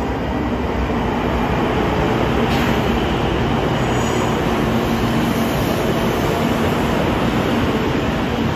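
A JR Kyushu 800 series Shinkansen train running past, a steady loud running noise with a low hum that grows stronger about halfway through.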